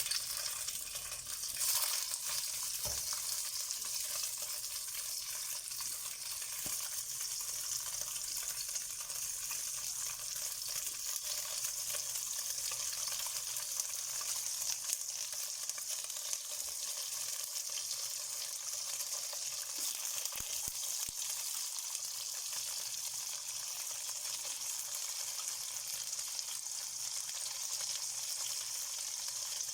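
Slices of tofu sizzling and crackling steadily in hot oil in a pan, shallow-frying. A sharper burst of spatter comes about two seconds in.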